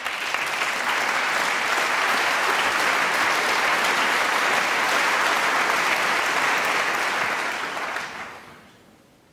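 Snooker audience applauding a player's break of 70: steady clapping that starts at once, holds for about eight seconds, then dies away over a second.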